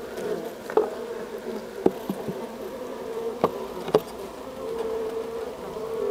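Honeybees buzzing close up inside the hive, a steady hum, broken by four sharp ticks within the first four seconds.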